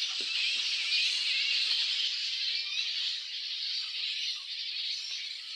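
A flying fox colony in the rainforest canopy screeching and squabbling: a dense, loud, shrill chatter of many animals at once, unbroken throughout.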